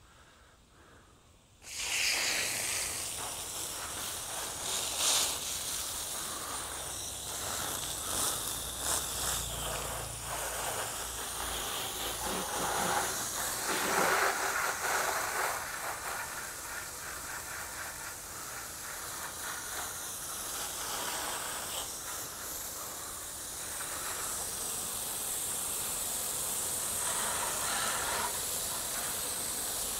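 Water spraying from a hose onto a motorcycle to rinse off the soap: a steady hiss of spray that starts about two seconds in, swelling and easing as the stream moves over the bike.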